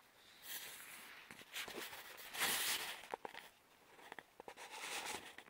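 Close rustling and crunching with scattered short clicks, loudest in a broad burst about two and a half seconds in.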